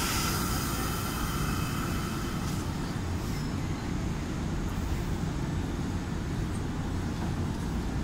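Yoro Railway 600 series electric train standing at the platform, its equipment running with a steady low rumble. A faint tone fades out in the first couple of seconds.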